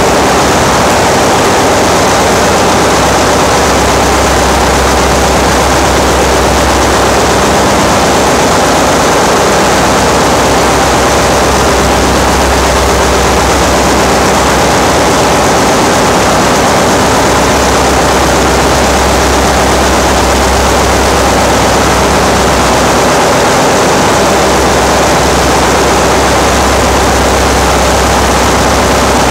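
Loud, steady drone of a ship's engine-room machinery running: a dense, even noise over a low hum, with no distinct knocks or breaks.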